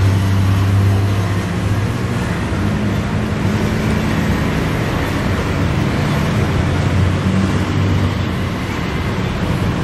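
Steady road traffic noise with a low engine hum that swells and eases slowly.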